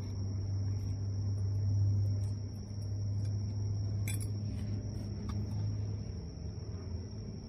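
A steady low hum, with a light metallic clink about four seconds in and a few fainter ones as a steel strut tower bar bracket and flat steel reinforcement plates are handled on a concrete floor.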